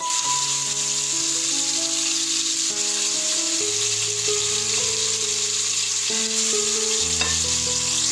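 Marinated chicken pieces sizzling steadily as they shallow-fry in hot sunflower oil in a pot.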